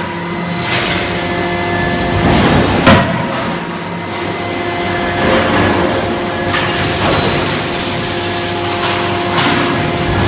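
CNC hydraulic die forging hammer (31.5 kJ) striking a hot steel hook blank: one sharp ringing blow about three seconds in. Underneath are a steady machinery hum and several shorter hissing swells of forge-shop noise.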